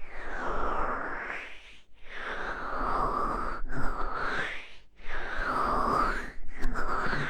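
Hands cupping and rubbing over the ears of an ASMR microphone. The sound comes as about five slow whooshing swells, each one or two seconds long, with a brief hush between them.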